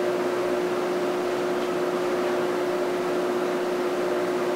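Room tone in a large hall: a steady hiss with a constant low hum, unchanging throughout.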